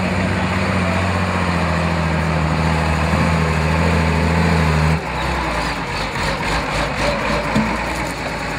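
Off-road trial truck's engine running steadily under load on a climb, its pitch easing slightly down. About halfway through it changes abruptly to a rougher, lower rumble.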